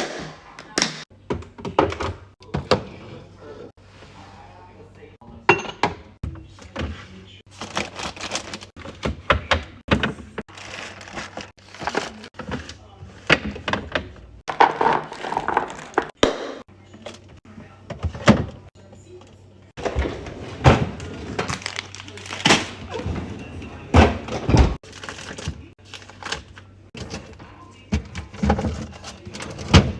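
Groceries and containers being set down and shuffled on fridge shelves: a busy run of knocks, thunks and clacks.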